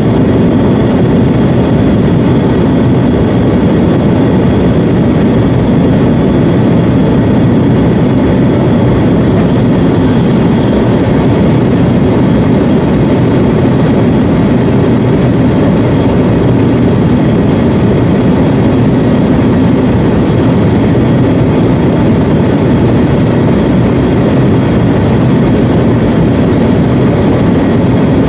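Steady cabin noise of a jet airliner at cruise: a constant, even roar of engines and airflow, heaviest in the low end.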